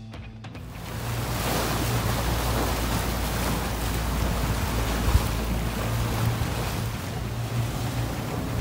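Fishing boat running at sea: a steady low engine drone under wind buffeting the microphone and water rushing past the hull, with one short thump about five seconds in. The tail of background music ends right at the start.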